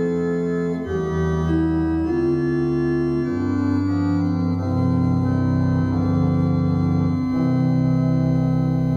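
Organ playing a hymn tune in slow, sustained chords that change about once a second, then settling on a long held chord in the last second and a half.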